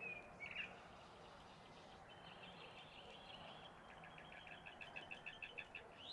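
Faint bird chirping, with a quick run of repeated notes, about six a second, building toward the end.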